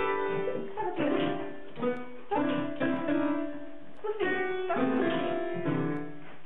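Piano keys pressed by a dog's paws: clusters of several notes sounding together, struck at irregular intervals about once a second and left to ring.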